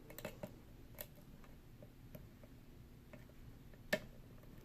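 Faint light ticks of a hook pick working the pin stacks inside a Yale & Towne safe deposit box lock, with one sharper click near the end, the kind of click the picker takes for a pin setting or a part shifting inside the lock.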